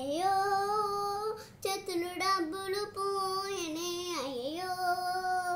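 A young girl singing in long, drawn-out notes, with a short break between phrases and the pitch dipping and rising again about four seconds in.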